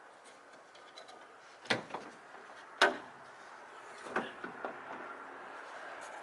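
A door being opened and shut: two sharp knocks about a second apart, then a few lighter clicks.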